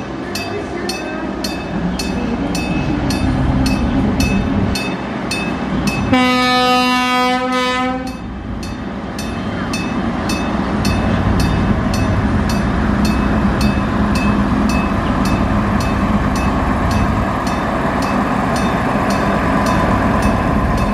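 Electric bell of a level-crossing warning signal ringing steadily at about two strikes a second, over the rumble of a passing train on the sugar factory's narrow-gauge line. The train's horn sounds once for about two seconds, about six seconds in.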